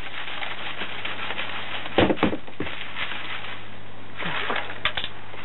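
Washed river sand being sifted by shaking it through a plastic crate with a fine-mesh bottom: grains rustle through the mesh, the crate knocks twice about two seconds in, and there is another rustle and a couple of clicks near the end.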